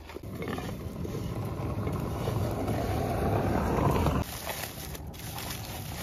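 A low rushing noise that grows louder and then cuts off suddenly about four seconds in, followed by a quieter, steady background noise.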